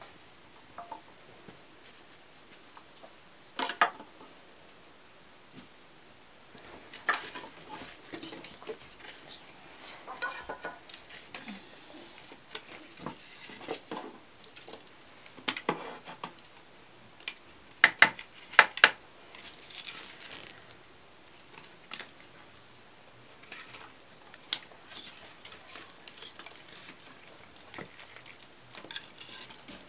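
Metal ladle clinking and scraping against an aluminium cooking pot as the rice is stirred, in irregular knocks with softer scraping between; the loudest is a quick pair of knocks about two-thirds of the way through.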